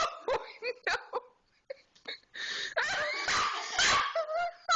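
People laughing: a few short bursts of laughter, then after a brief pause a long, high, wavering fit of laughter.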